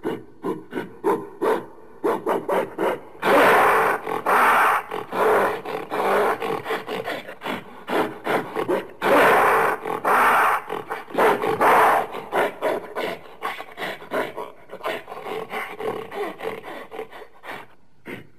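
Gorilla vocalising: a long, irregular series of short, rough grunts, several a second, broken by a few longer rasping calls.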